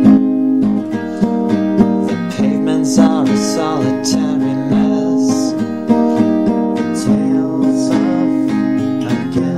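Music: a song with strummed acoustic guitar, chords struck in a regular rhythm.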